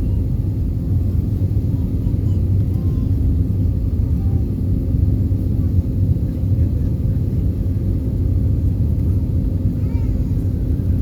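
Airbus A320 cabin noise: a steady low rumble of engines and airflow heard from inside the passenger cabin.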